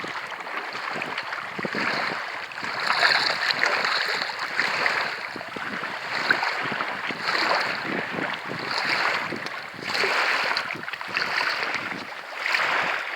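Small waves lapping and splashing at the edge of a sea loch, swelling and easing every second or two.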